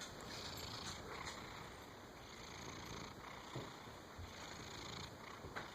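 A soundly sleeping domestic cat snoring faintly, in slow, even breaths.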